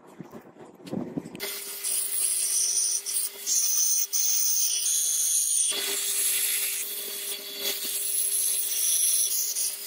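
Belt grinder running, its abrasive belt grinding the edge of a steel knife blank: a steady hum under a loud, high hiss of metal on the belt, starting about a second and a half in and breaking off briefly near the middle.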